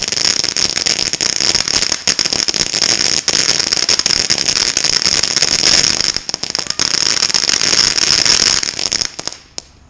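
Ground fountain firework spraying sparks: a steady hiss with dense crackling that dies out shortly before the end, with a few last pops.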